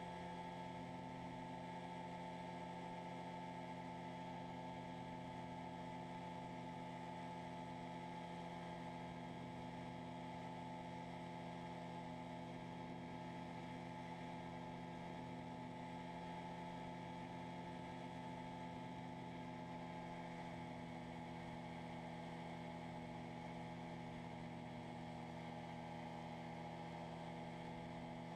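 Freshly overhauled Rotax 503 two-cylinder two-stroke engine of an ultralight running steadily in flight, a constant drone that holds one pitch throughout.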